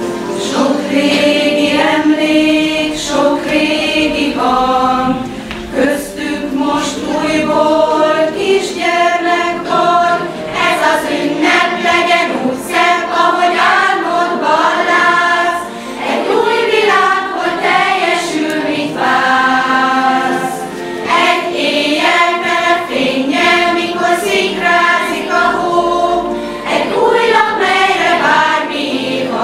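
Choir of women and children singing together, held sung notes in phrases with brief breaks for breath between them.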